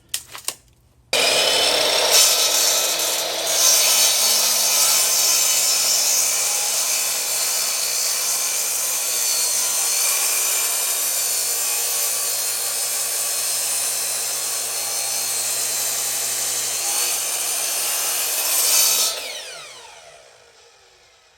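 Electric power saw started about a second in and cutting steadily through a pressure-treated 6x6 wooden post for about 18 seconds. Near the end it is released and the motor winds down with a falling pitch.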